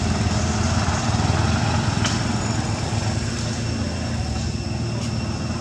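Motor vehicle engine running steadily with a low hum, with a faint click about two seconds in.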